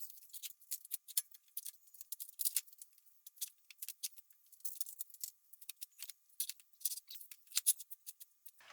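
A transmission on a motorcycle jack being shifted into place under a car: a faint, irregular run of light clicks and rattles.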